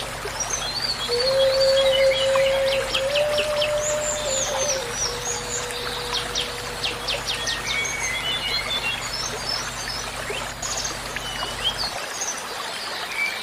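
Minangkabau bamboo flute playing soft, long held low notes that step slightly in pitch and fade out near the end, with birds chirping and trilling throughout.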